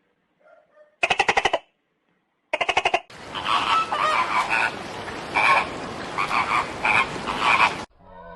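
Frogs croaking: two short, rapidly pulsed croaks about a second and a half apart, then about three seconds in a dense chorus of many frogs calling over one another, which cuts off suddenly near the end.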